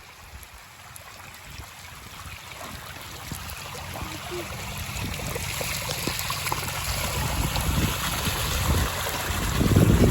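Storm runoff rushing down a road like a stream: a steady rush of flowing water that grows louder, with a low rumble coming in near the end.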